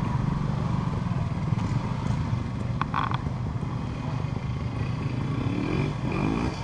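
Old trials motorcycle engine running at low revs, with the revs rising briefly near the end as the bike is ridden through the section.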